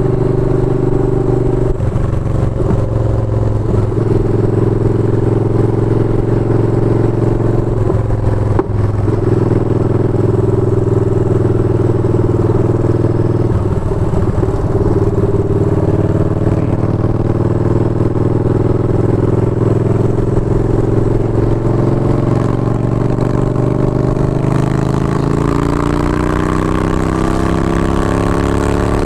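Yamaha Bolt XVS950's air-cooled V-twin running while riding along a city street, heard from the rider's seat. The engine note stays steady with a few brief dips, then rises gradually near the end as the bike accelerates.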